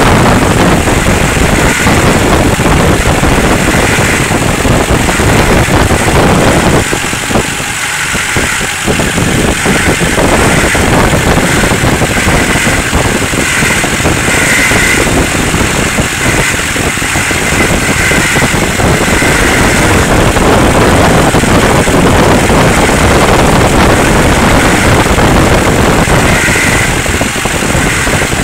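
2005 Duramax LLY 6.6-litre V8 turbodiesel running, with an intermittent humming buzz that seems to come from the front of the engine; the cause is unknown to the owner.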